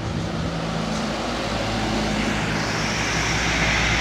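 Diesel engines of a convoy of loaded sugarcane trucks running, the steady engine note growing louder as a truck approaches. From about two and a half seconds in, a rising rush of engine and tyre noise joins it as the truck passes close by.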